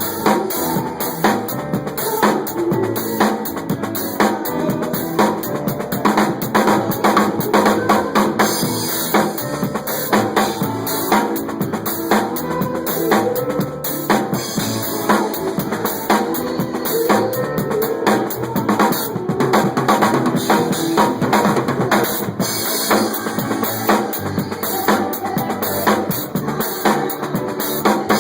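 Music with a prominent drum kit, bass drum and snare strokes with rimshots, playing continuously over pitched instruments.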